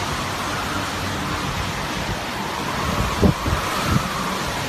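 Hurricane wind blowing hard and steadily, buffeting the microphone, with two heavier gusts thumping on it about three and four seconds in.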